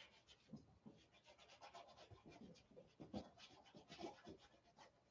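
Paintbrush scratching faintly across an acrylic painting in a run of short, quick strokes.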